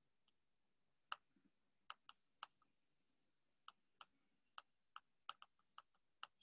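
Faint computer keyboard typing: about fourteen sharp key clicks at an uneven pace, some in quick pairs, over near silence.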